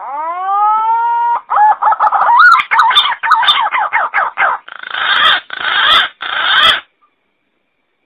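Green pigeon (punai) calling. It gives a whistle that rises and then holds, then a quick run of wavering, warbling whistled notes, then three harsher rasping notes, and falls silent about seven seconds in.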